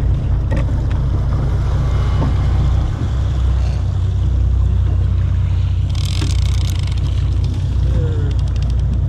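A boat's engine running with a steady low rumble, with water churning against the hull and a short burst of hiss about six seconds in.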